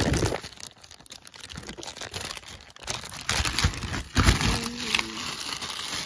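Clear plastic bag crinkling as it is handled and pulled open, quieter for the first few seconds and louder in the second half, with a few dull knocks.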